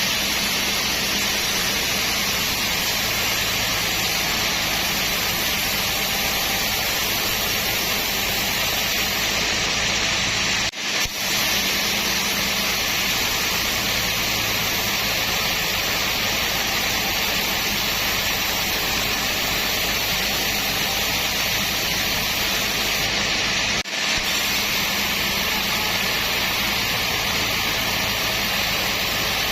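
Sawmill machinery running steadily: a loud, even rushing noise with a low hum under it, breaking off for an instant twice.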